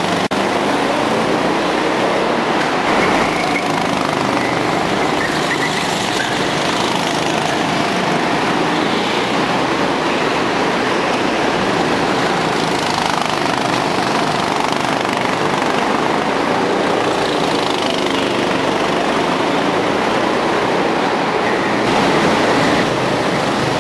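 Go-kart engines running at racing speed, a steady loud drone with whines that rise and fall as the karts accelerate and pass, inside a large hall.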